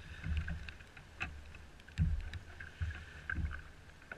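Water sloshing and slapping against a kayak's hull, with irregular low knocks and small clicks.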